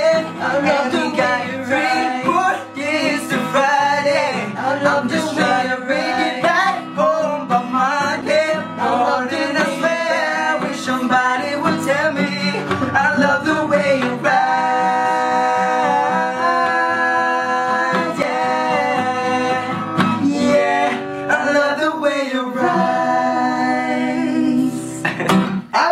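Music: a young male voice singing over guitar, with long held notes through the middle stretch.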